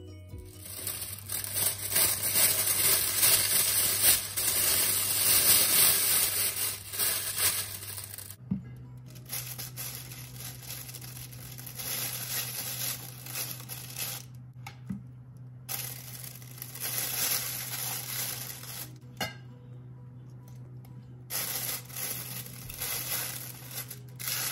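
Plastic oven roasting bag crinkling and rustling as it is pulled from its box, opened and filled with marinated quail. It is loudest in the first eight seconds, then comes in softer bursts. Soft background music with a low sustained note runs underneath.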